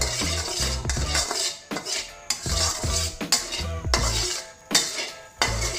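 A metal spatula scraping and stirring salt around a hot, dry metal wok, in repeated strokes. Background music with a steady low beat plays underneath.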